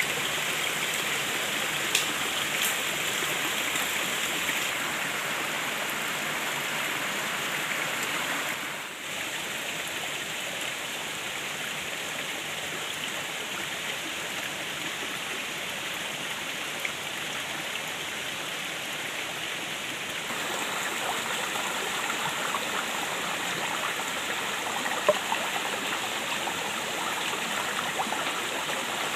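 Hot oil sizzling steadily in a pan as food fries, with a few sharp pops.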